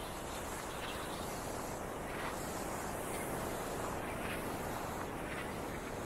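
Steady rushing of surf on a sandy beach, mixed with wind.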